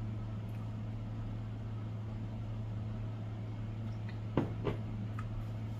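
Steady low background hum, with two quick sharp clicks about four and a half seconds in.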